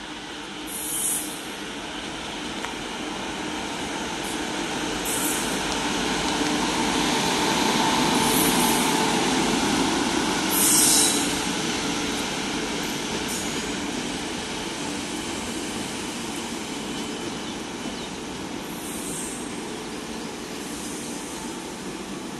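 Electric-locomotive-hauled express train arriving and rolling past: a steady rumble of locomotive and coach wheels on the rails, growing to its loudest as the locomotive goes by about ten seconds in, then easing as the coaches pass. Several short high-pitched bursts are heard along the way.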